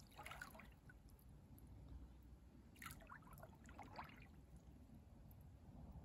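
Faint sloshing and splashing of pool water stirred by legs bending, opening and stretching beneath the surface, with a few brief swishes, the clearest about three to four seconds in.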